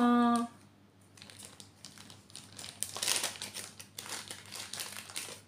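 A short drawn-out vocal hum at the start, then plastic packaging crinkling and rustling irregularly for several seconds as it is handled.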